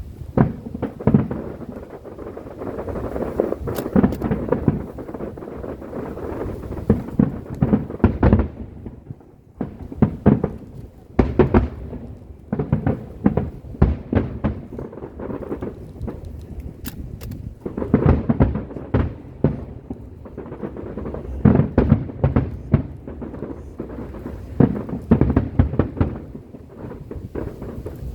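Fireworks shells bursting in quick succession: a dense run of sharp bangs over a continuous low rumble, with louder clusters of bangs at intervals.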